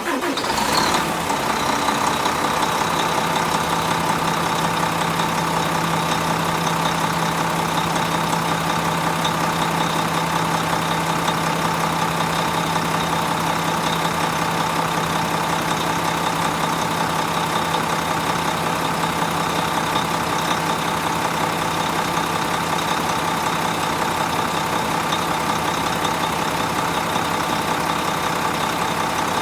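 Hino Selega tour bus's E13C inline-six diesel engine just after starting: it flares briefly in the first second, then settles into a steady idle.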